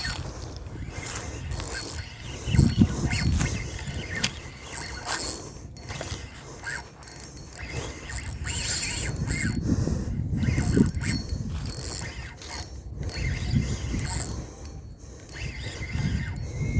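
Fishing reel being cranked, its gears and ratchet clicking and whirring, as a hooked wallago catfish is fought and reeled in.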